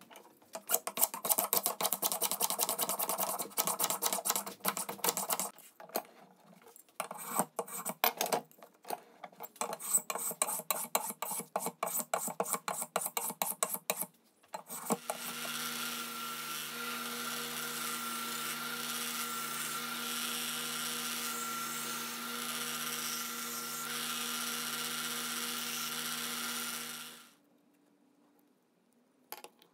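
Rapid back-and-forth abrading strokes over a wooden board clamped in a bench vise, in quick bursts with short pauses, for about 14 seconds. Then a small electric power tool runs steadily at one pitch for about 12 seconds and stops.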